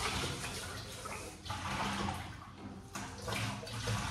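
Water swishing and splashing in a metal cooking pot as rice is washed by hand, in three stretches with short breaks between them.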